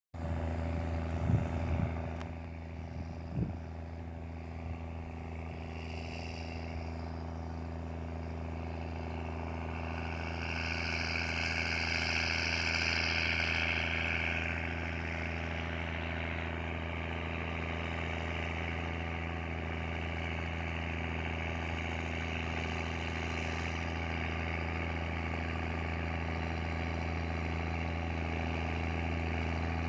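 Case tractor engine running steadily at constant speed with a deep, heavy rumble. A couple of sharp knocks sound in the first few seconds, and a higher rushing sound swells between about ten and fourteen seconds in.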